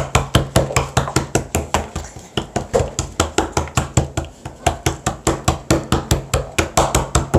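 Rapid, even knocking or slapping, about five strikes a second, kept up without a break, over a steady low hum.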